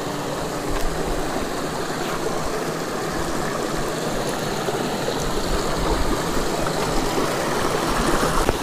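Shallow mountain stream running over rocks, with small cascades splashing between boulders: a steady rush of water.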